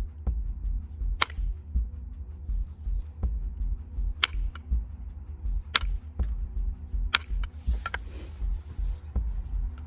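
Flint knapping: sharp clacks of strikes on a stone biface as flakes come off, four loud ones a second and a half to three seconds apart with fainter ticks between.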